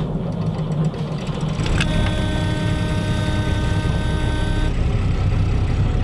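Houseboat's inboard diesel engine starting, its glow plugs preheated, then idling steadily at about 1000 rpm. A thin high steady tone sounds over it from about two to nearly five seconds in.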